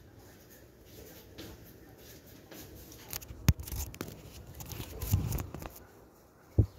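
Broom scraping over a tiled floor, with a few sharp knocks and rubbing about halfway through and again near the end.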